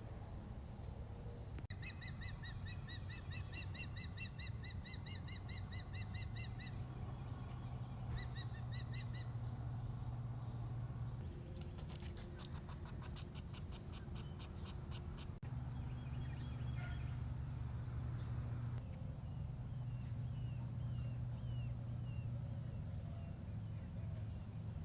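Birds calling in the early morning: a fast run of repeated high notes, then a dry rattling series of rapid clicks about halfway through, then faint short chirps near the end. A steady low hum runs underneath.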